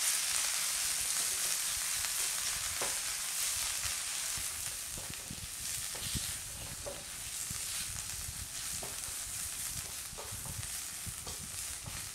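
Maitake mushrooms sizzling in a frying pan on medium heat while a spatula stirs them, with scattered light scrapes and taps of the spatula against the pan.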